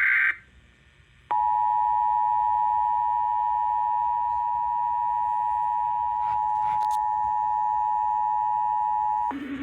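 Emergency Alert System broadcast. First comes the tail of a short burst of SAME header data tones, then about a second of quiet, then the two-tone attention signal: a steady dual tone just under 1 kHz, held for about eight seconds before it cuts off. A different, lower sound starts just before the end.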